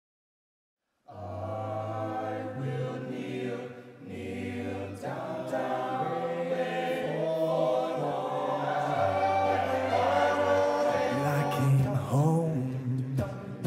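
All-male a cappella group singing sustained close-harmony chords over a low bass line. It starts about a second in and grows fuller after a brief dip about four seconds in.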